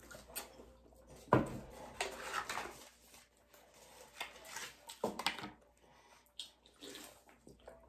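Close, irregular eating noises: chewing, with crinkling and rustling of Hot Pocket paper crisping sleeves and a few sharp clicks scattered through.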